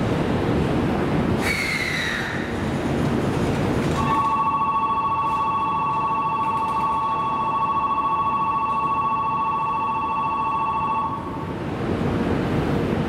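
Train running at a platform with a brief falling squeal, then an electric platform departure bell rings steadily for about seven seconds and stops. The running noise returns after the bell.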